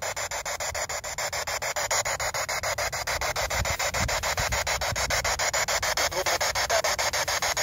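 Handheld ITC Research spirit box, a radio scanning rapidly from FM station to station, giving a steady hiss of static chopped into rapid, even pulses as it hops frequencies.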